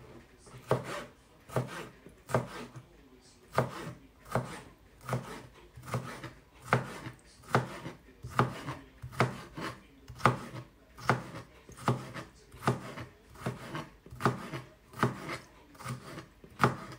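Chef's knife chopping pickled cucumber on a chopping board: steady single knocks of the blade on the board, a little more than one a second.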